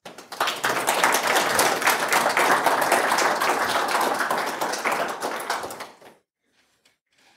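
Audience applauding: many hands clapping at once, dying away about six seconds in.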